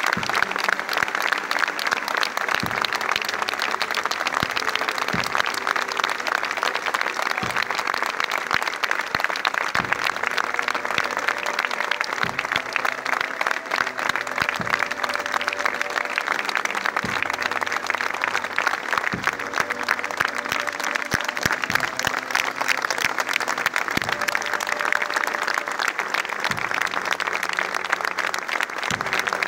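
A large crowd applauding steadily, many hands clapping without a break.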